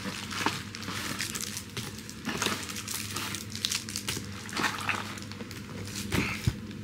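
Plastic candy bar wrapper crinkling irregularly as it is torn open.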